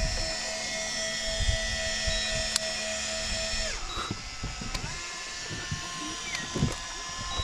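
Variable-speed electric fishing reel motor whining as it winds line up from a deep drop. The pitch falls sharply near the middle as the speed is turned down, then settles to a new steady whine.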